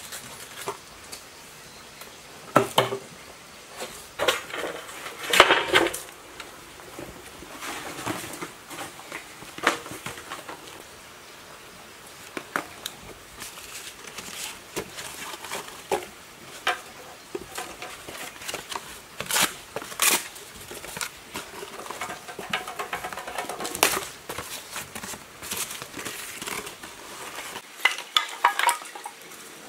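Irregular metallic clinks, knocks and scrapes from handling an old electric motor's stator and its pulled-out windings, with paper rustling as cardboard is stuffed into the housing.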